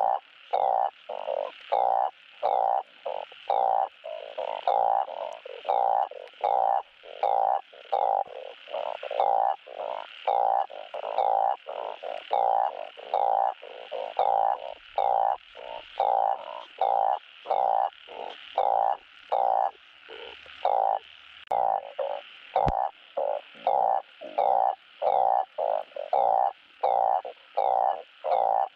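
Truncate-snouted burrowing frog (Glyphoglossus molossus) giving its mating call: short croaks repeated over and over, about three every two seconds, some louder than others.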